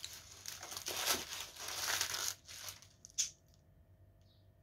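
Brown paper bread bag crinkling and rustling for about two and a half seconds while a piece of crusty French baguette is pulled from it, then one sharp crackle about three seconds in.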